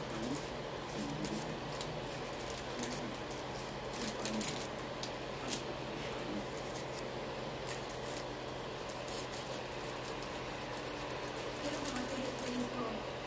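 Nail file scraping across fingernails in short, irregular strokes, over a steady low hum from a nail dust collector fan.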